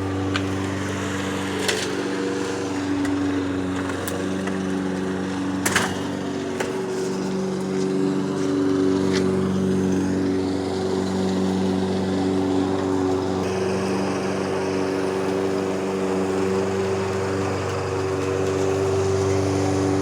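A motor running steadily with an even, unchanging hum, with a few sharp clicks in the first six seconds.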